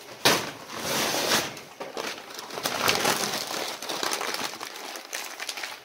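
Paper being crumpled and crinkled by hand: a dense, irregular run of crackling rustles that starts sharply about a quarter second in.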